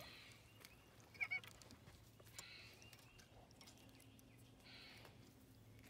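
Near silence on the water, with a faint low steady hum and one brief distant bird call about a second in.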